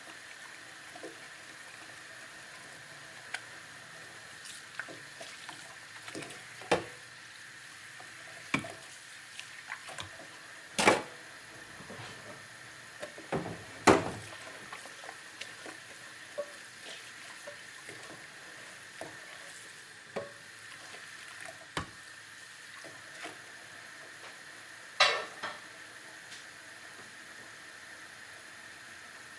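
Dishes being washed in a sink: plates and utensils clink and knock against each other at irregular moments over a steady wash of water, with a few louder clanks about eleven, fourteen and twenty-five seconds in.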